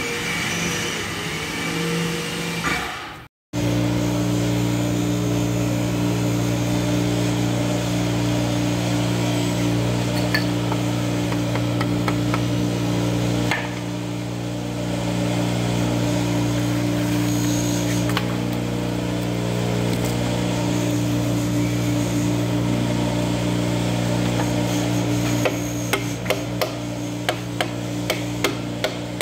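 Large metal lathe running with a steady hum while it holds an electric motor housing in its chuck. Near the end, quick light knocks on metal join in, about three a second.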